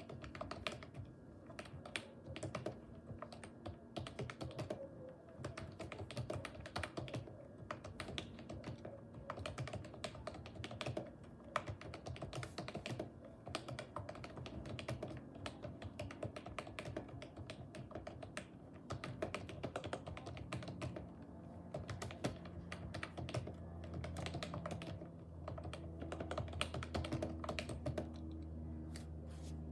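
Fast, continuous typing on a lubed Logitech G213 keyboard with membrane Mech-Dome keys: a dense, uneven run of key clacks, many strokes a second.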